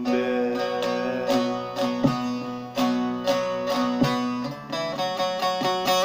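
Bağlama (Turkish saz) played solo, plucked melody with no singing. Near the end the picking turns to quick, even strokes.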